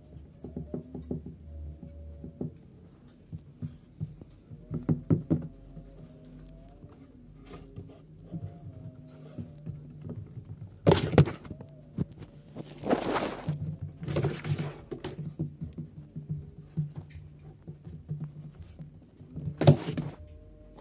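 A calico cat playing on its own: irregular light taps and knocks with a few louder thumps, one a little past the middle and one near the end, and a brief scraping rush between them.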